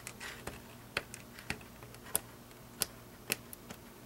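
Fingernails picking at the corner of an adhesive strip's backing on a manila folder flap to start peeling it off, giving a scattered series of small sharp clicks and a faint crinkle of paper.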